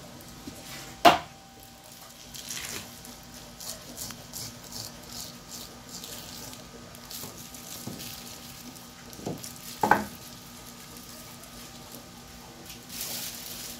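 Knife scraping and slicing along an eel's backbone on a wooden cutting board in short, scratchy strokes. Two sharp knocks on the board, about a second in and again near ten seconds, with a faint steady hum underneath.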